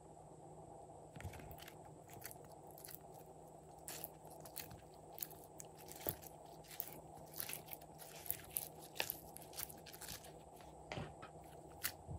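Glossy slime being pulled from a plastic tray, then stretched and squeezed by hand, giving irregular sticky clicks and pops. The clicks start about a second in and come thickest in the middle.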